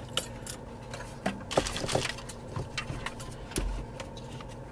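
Plastic wiring plugs and cables handled at the back of a car radio unit, making irregular light clicks and rattles as the connectors are worked loose.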